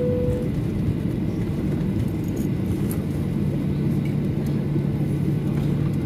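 Boeing 737-800 cabin noise on the ground after landing: a steady low rumble of engines and wheels, with a steady hum joining about halfway through.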